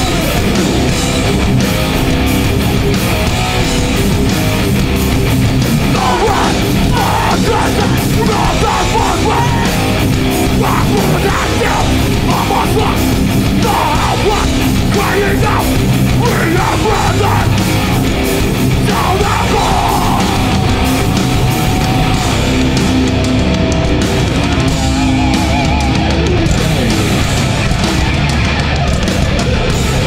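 Metallic hardcore band playing live at full volume through a concert PA: heavily distorted electric guitars, bass and drums.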